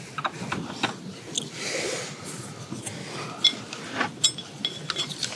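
Spoons and chopsticks clicking and tapping against metal rice bowls during a meal, a few of the taps giving a brief metallic ting, with a soft breathy hiss about two seconds in.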